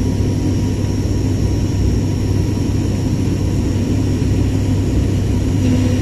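Airliner cabin noise: a steady engine drone and airflow rumble, heaviest in the low end, with a faint steady whine over it.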